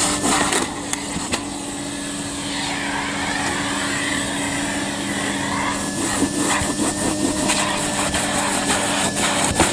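Numatic Hetty canister vacuum cleaner running steadily with a constant motor hum and airflow hiss while the nozzle is worked over small car rugs, with frequent short clicks, more of them in the second half.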